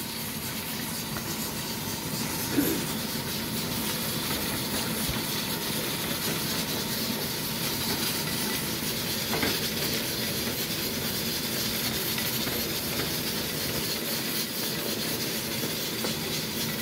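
Masala sizzling steadily as it fries in an aluminium pot, stirred with a wooden spoon that knocks against the pot about two and a half seconds in and again near the middle.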